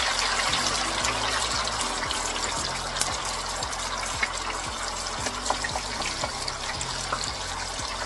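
Parboiled potatoes just lowered into hot oil in an electric deep fryer: the oil bubbling and sizzling hard with a dense crackle, easing gradually as the surface moisture cooks off.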